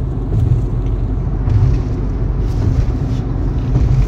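Inside a moving car: steady road and engine noise, a continuous low rumble.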